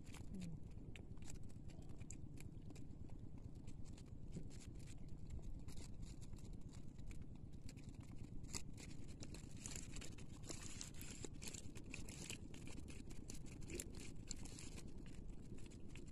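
Fishing net rustling and crackling as small fish are picked out of the mesh by hand: a dense, irregular run of soft scratchy clicks, busiest from about halfway through, over a steady low rumble.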